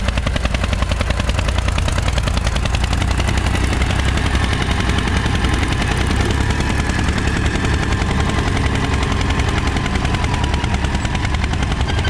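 Mahindra Airflow tractor's diesel engine running steadily under load with a rapid, even exhaust beat as it pulls a nine-tyne cultivator through the soil.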